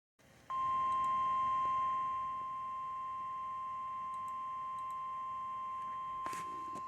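Emergency alert attention tone: a single steady high-pitched beep that starts about half a second in and holds, louder for its first two seconds, signalling a weather warning about to be read. A brief crackle of static near the end.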